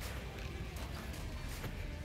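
Wind rumbling on the microphone in an open field, with faint soft knocks and scuffs of two men doing burpees on grass.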